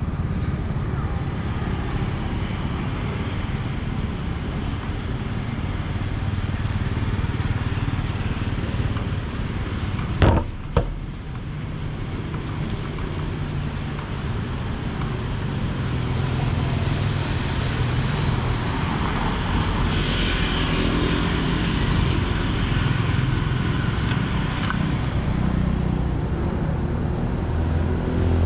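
Steady street traffic noise from passing motorbikes and cars, with two sharp clicks about ten seconds in.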